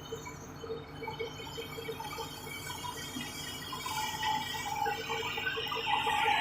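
Komatsu D70LE crawler bulldozer's diesel engine running with a steady low pulse, growing louder near the end as higher-pitched mechanical noise builds up.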